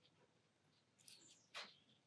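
Near silence, broken by two faint, brief scratches of a pen tip on watercolour paper, about a second in and half a second later.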